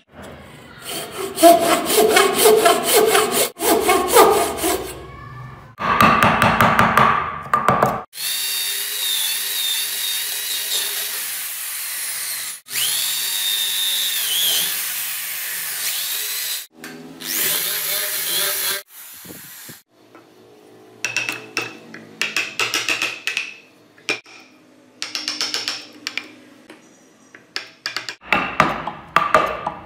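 A hand frame saw cutting through a block of wood with quick strokes, then a cordless drill whining as it bores into the wood, its pitch shifting with speed and load. After that come short, scattered scrapes and clicks of a chisel paring wood.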